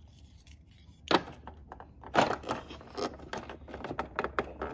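Small plastic toy parts clacking and clicking as a Calico Critters school bus seat is handled and pressed into its slots in the bus floor: two sharp clacks about one and two seconds in, then a run of light clicks and rattles.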